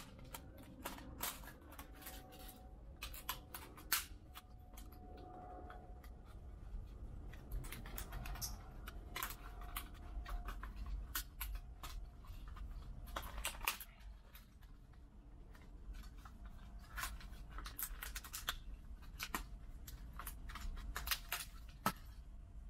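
Plastic parts of a smashed DJI FPV drone and its goggles cracking, snapping and clicking as they are pried and pulled apart with a hand tool, in irregular clusters of sharp clicks.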